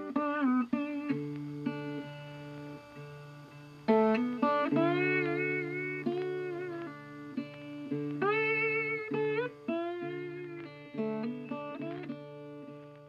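Background music led by plucked guitar, with sustained low notes and melody notes that bend in pitch.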